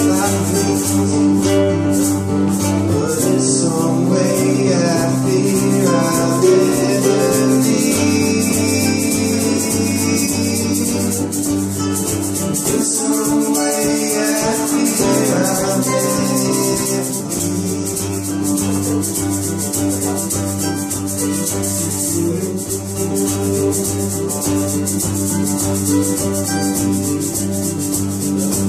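Live acoustic band music: strummed acoustic guitar over bass notes that change every few seconds, with a shaker keeping a steady fast rhythm and a wavering melody line coming in at times.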